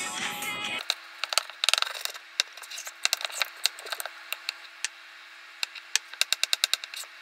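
Metal spoon stirring thick brownie batter in a ceramic mug, clinking and scraping against the mug's sides in quick runs of taps.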